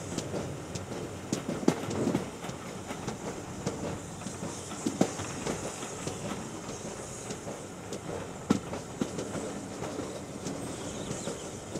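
Steam-hauled passenger train running, heard from an open carriage window: the steady rumble of the coaches with the clickety-clack of wheels over the track and a few sharper knocks.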